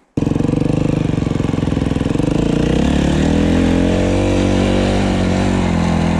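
Dirt bike engine running hard and revving. The pitch climbs through the middle and then holds steady, and the sound starts and stops abruptly.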